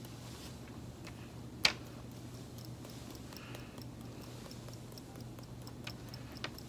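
Small clicks and taps from a paintbrush being handled and tapped over the paper to spatter alcohol ink, with one much louder sharp click about one and a half seconds in and two more near the end, over a steady low hum.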